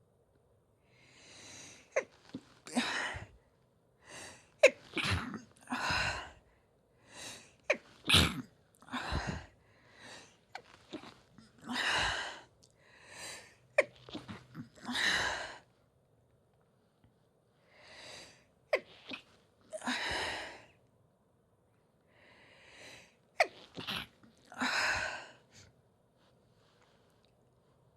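A woman sneezing over and over, about a dozen sneezes, each led in by a breathy intake, with short pauses between some of them. The sneezing fit is brought on by chhinkni, a sneezing powder.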